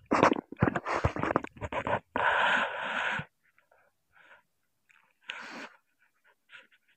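Water splashing and sloshing in shallow seawater: a run of short irregular splashes, then a longer rushing splash about two seconds in, after which only a few faint splashes are heard.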